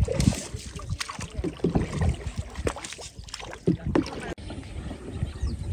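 Wind rumbling on the microphone over open water, with irregular small knocks and splashes from a small boat. The sound breaks off abruptly about four and a half seconds in to a quieter, steadier stretch.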